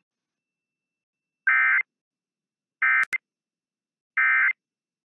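Emergency Alert System end-of-message (EOM) data tones: three short, identical bursts of buzzy digital chirps about a second and a half apart, marking the end of the alert test. Two sharp clicks sound against the second burst.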